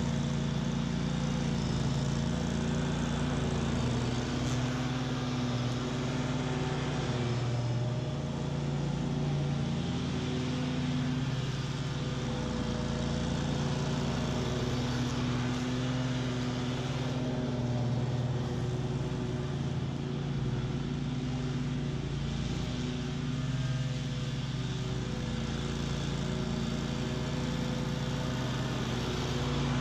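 BOB-CAT QuickCat 36-inch stand-on mower running steadily with its blades cutting through tall, thick weeds. The engine note wavers a little as it takes the load.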